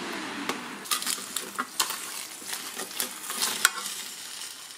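Roast chicken and potatoes sizzling in the hot pot of an electric grill and air fryer while a metal fork and utensil turn the chicken over, making scrapes and sharp clicks against the food and the pan.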